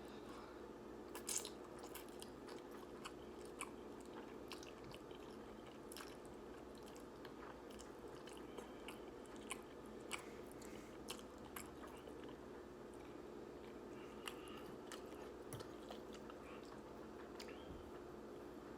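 Close-miked eating of instant ramen noodles: chewing with irregular small mouth clicks and smacks, over a faint steady hum.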